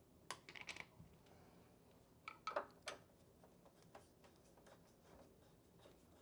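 Faint, scattered clicks and taps of a screwdriver working at the screws of an exercise bike's plastic side panel, with a few sharper clicks about halfway through.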